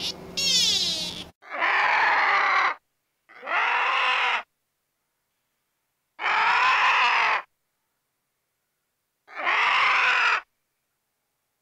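An animal calling: the tail of one higher call with gliding pitch, then four separate calls of about a second each with silence between them.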